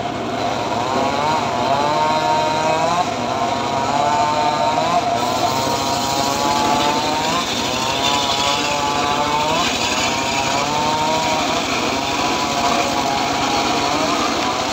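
Engine-driven homemade circular sawmill cutting a log of dry acacia wood. The engine note keeps sagging and recovering every second or two as the blade works through the hard wood, over a steady hiss of cutting.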